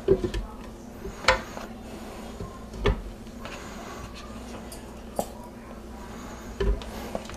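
Chunks of cooked chicken breast dropped by hand into a countertop blender jar, with about five separate sharp knocks and clunks of the bowl and chicken against the jar.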